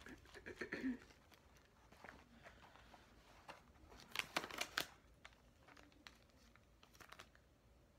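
Paper and plastic fast-food packaging being handled and opened, crinkling and rustling, with the loudest run of crackles about four seconds in.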